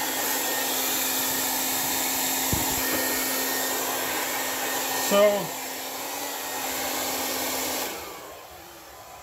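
Hair dryer running on high: a steady rush of air with a low motor hum, which stops about eight seconds in.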